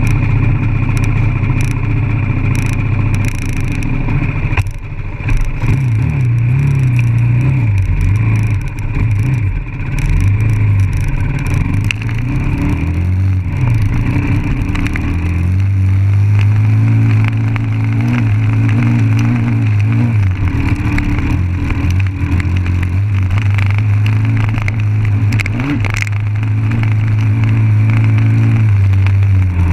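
Dirt bike engine running close by, its pitch rising and falling with the throttle through the first half, then holding steadier from about halfway.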